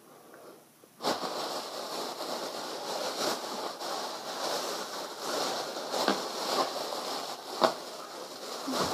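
Thin plastic carrier bag rustling and crinkling as hands rummage inside it, starting suddenly about a second in and carrying on steadily, with a few sharper crackles.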